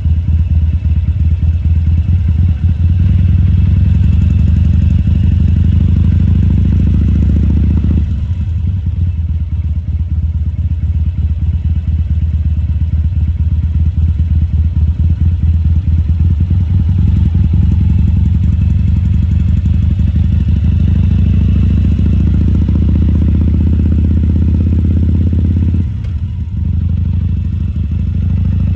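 2014 Harley-Davidson Sportster XL1200C's air-cooled 1200 cc V-twin running at low speed with a loud, uneven exhaust note. The throttle swells and eases, dropping off about eight seconds in and dipping briefly near the end.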